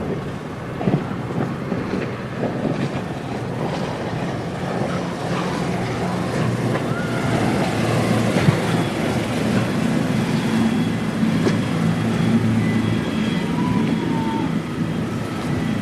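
River Thames water flowing gently, with a steady low engine hum that grows louder about halfway through.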